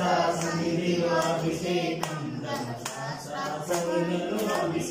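Telugu devotional bhajan for Ayyappa's abhishekam, sung by several voices over a steady beat.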